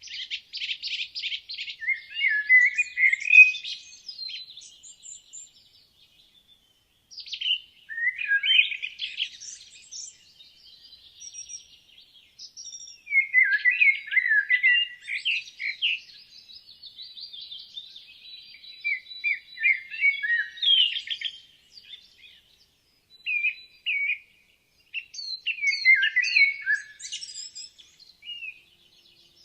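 Woodland songbirds singing: a rapid trill at the start, then varied whistled phrases a few seconds apart, sometimes overlapping, with brief silences between.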